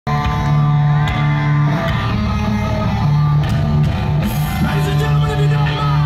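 Loud live hard rock from an arena PA, heard from among the audience: held chords over a heavy bass line, with crowd shouts on top.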